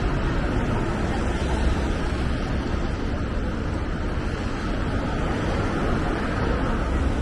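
Steady rain ambience on a city street: an even hiss of rain over a low rumble.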